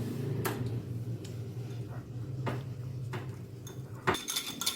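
Metal utensil clinking and tapping against a dish while custard powder is mixed with a little milk: separate sharp clicks every half second to a second, with a brighter ringing clink near the end, over a steady low hum.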